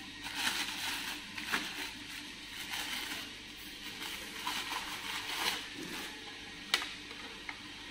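Thin plastic wrapping bag crinkling and rustling in irregular bursts as a vacuum cleaner attachment is pulled out of it, with a single sharp click near the end.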